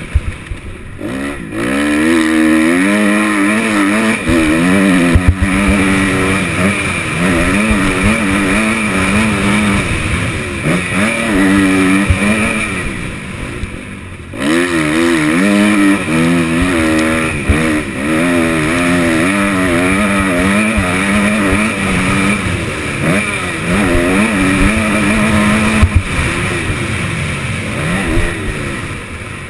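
Kawasaki KX250F four-stroke single-cylinder motocross engine revving hard and easing off over and over as the bike is ridden round a dirt track, heard from a helmet-mounted camera. The throttle is shut off briefly about a second in and again around thirteen to fourteen seconds in, and a few sharp knocks come through.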